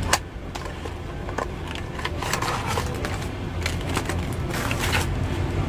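A small product and its plastic packaging being handled: a sharp click just after the start, then scattered clicks and bursts of rustling, over a steady low hum.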